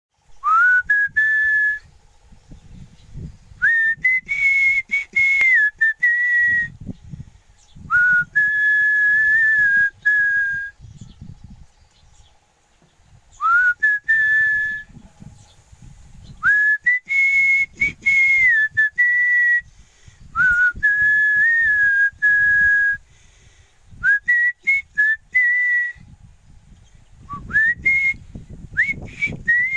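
A person whistling a slow tune in phrases of a few seconds with short pauses between them, many notes sliding up into the pitch. Wind gusts buffet the microphone underneath.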